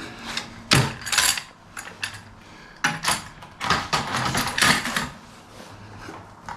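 Hydraulic quick-connect couplers and hoses being handled and worked: several bursts of metallic clicking, clacking and scraping. The couplers are stiff, which the owner puts down to the cold.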